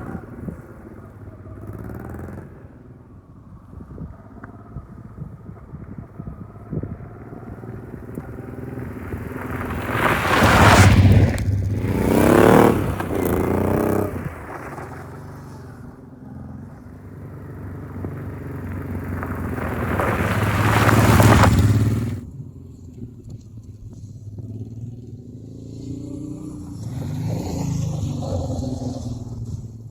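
Honda Transalp XL600V's V-twin engine running as the motorcycle is ridden, revving up with rising pitch about a third of the way in. It builds again to a louder peak about three-quarters of the way through, where the throttle is shut off abruptly.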